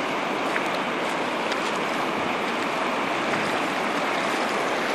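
Swollen, muddy river in flood rushing past in a steady, even wash of water noise.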